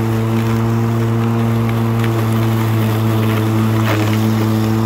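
Stihl 235 battery lawn mower running while cutting long grass: a steady hum with a few clear overtones from the electric motor and spinning blade, dipping briefly in pitch about four seconds in.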